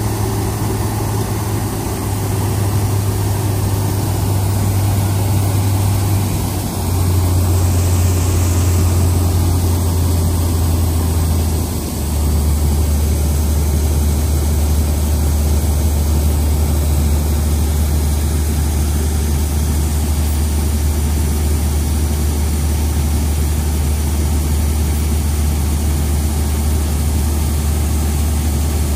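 New Holland combine harvester's diesel engine running steadily while it unloads wheat grain through its auger spout. It is a constant low drone with a rushing haze over it. The drone steps down in pitch twice, about seven and about twelve seconds in.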